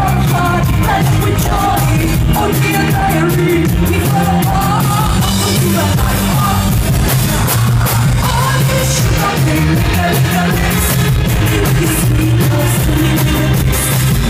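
Live band playing a pop-rock song at concert volume, with a woman singing over drums and guitar.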